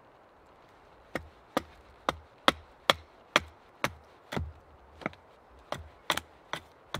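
A hatchet chops into a wooden board held upright on a stump. About a second in, a run of sharp, separate blows begins, about two a second.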